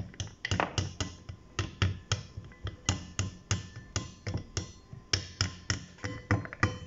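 Penne pasta tipped from a stainless-steel pot into a wooden bowl, the pieces tapping against metal and wood in a quick, irregular run of clicks, about three or four a second.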